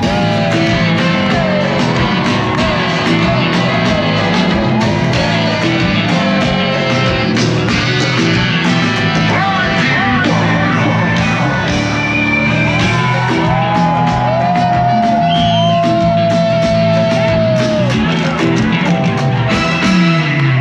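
Loud live Afrobeat music at a festival concert over a steady bass beat, with voices singing and the crowd shouting along.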